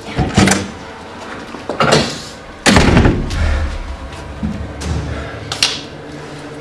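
A heavy door slamming and being banged on: a few sharp thuds and knocks, the loudest about two and a half seconds in with a low rumble after it.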